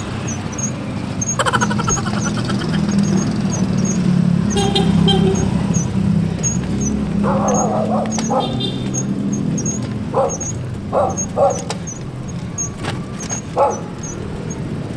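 Steady wind and road rumble from a moving bicycle, with a light regular ticking about twice a second. A few short voice-like calls come through in the second half.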